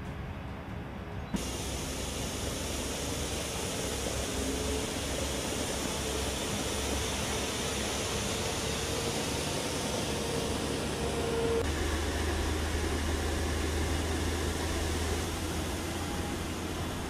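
Caterpillar motor grader working: steady engine and machinery noise with a hiss. The sound steps up abruptly about a second in, and a faint steady whine in the first part gives way to a deeper hum in the later part.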